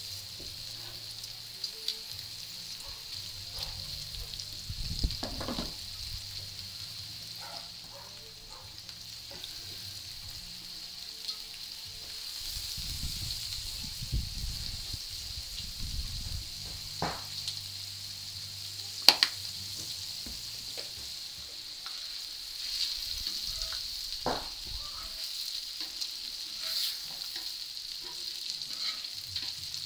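Beef burger patties and bacon sizzling on a hot round flat-top griddle: a steady frying hiss with scattered sharp clicks and pops, one much louder click about two-thirds of the way through.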